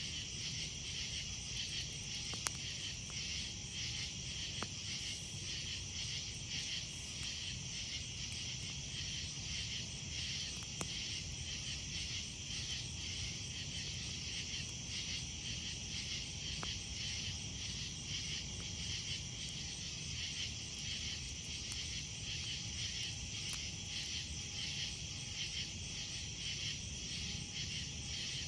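A steady, pulsing chorus of night insects, with a few small sharp pops from a wood campfire.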